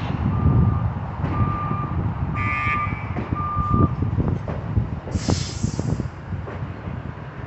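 Heavy equipment's backup alarm beeping about once a second over a diesel engine's low rumble; the beeps stop about four seconds in, followed by a few clanks and a short hiss of air.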